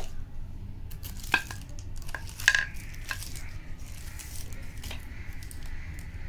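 Pieces of black slate clicking and clinking against each other as they are handled: a few sharp knocks that ring briefly, the loudest about two and a half seconds in, over a steady low hum.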